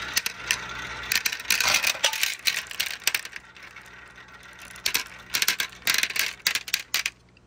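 Marbles rolling off a wooden marble run and dropping into a toy dump truck's plastic bed: a string of sharp, irregular clacks as they land and knock against one another, coming in flurries and thinning out near the end.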